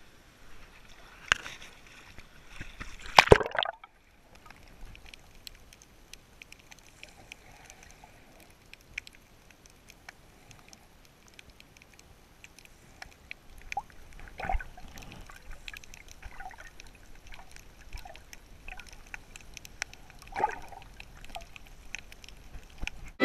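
Shallow water splashing twice, the second time loudest, as the camera goes under, then the muffled hush of being underwater with faint scattered crackles and a few soft knocks.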